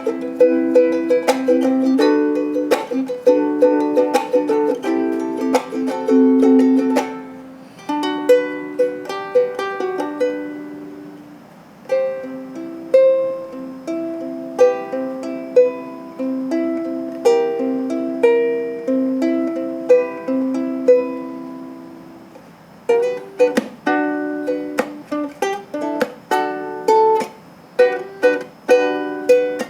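A ukulele being played solo: strummed chords, then a slower picked single-note melody over sparser chords from about twelve seconds in, with brisk strumming returning about twenty-three seconds in.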